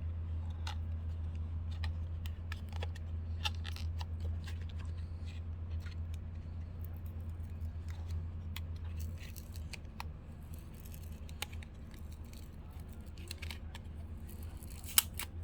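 Scattered small clicks and scrapes of hands working open a small cardboard blind box, over a steady low hum. A sharper click comes near the end.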